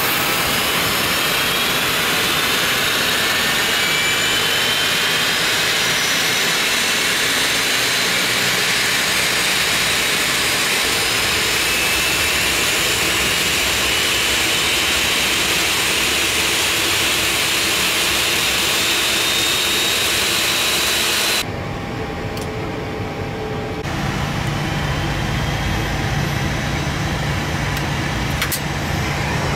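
Airliner turbofan engine spooling up during start: a steady rush of air with whines that rise slowly in pitch. About twenty seconds in it cuts off abruptly to a quieter cockpit sound with a steady low hum and a couple of clicks near the end.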